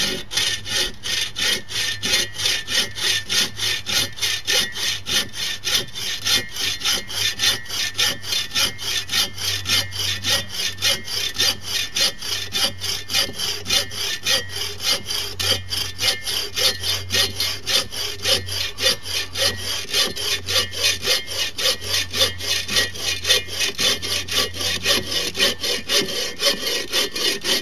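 Sven folding saw cutting through a roughly 3-inch oak limb with quick, steady back-and-forth strokes, the blade rasping through hardwood. The strokes stop suddenly at the very end as the cut goes through.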